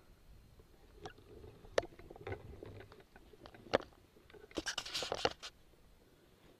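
Handling noise: scattered faint clicks and knocks, then a short burst of scraping and rustling about four and a half seconds in as the camera and rifle are shifted.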